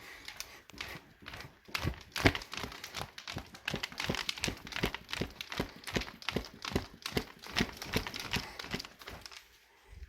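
Crinkling, clicking handling noise: irregular sharp clicks and crackles several times a second, denser through the middle, then dying away near the end.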